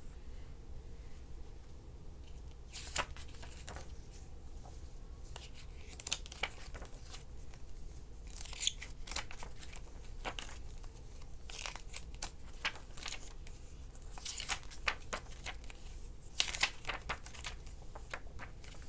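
Pages of a paper CD booklet being turned and handled: short rustles and crinkles that come in small clusters every couple of seconds.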